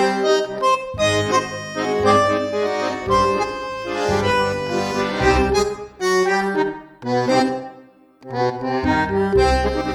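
Background music: a pitched melody over bass notes, with short breaks, the longest about eight seconds in.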